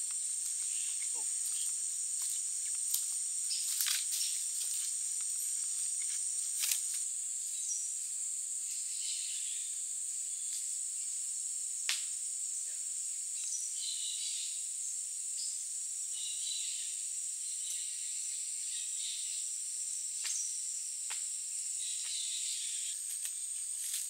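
Rainforest insect chorus: a steady high-pitched insect drone, with scattered short chirps and a few faint clicks.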